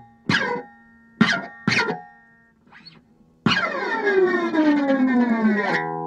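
Electric guitar strings struck and scraped with a screwdriver: three sharp hits in the first two seconds, each dropping in pitch, then a long downward glide of several tones from about three and a half seconds in, settling onto a steady ringing note near the end.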